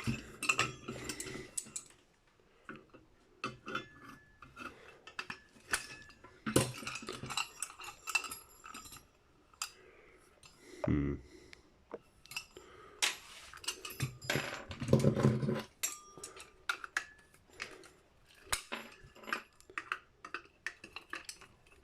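Brass and steel light-fitting parts clinking and rattling as they are handled and unscrewed, a string of irregular light metal taps and clinks.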